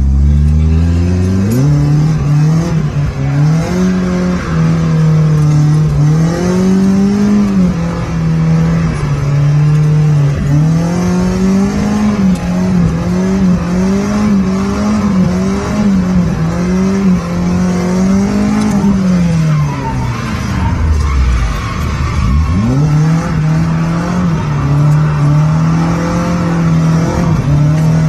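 Nissan 240SX (S13) engine revving hard in quick rises and falls as the car is held in a drift. About two-thirds of the way through, the revs drop right down, then climb back up. Heard from inside the car.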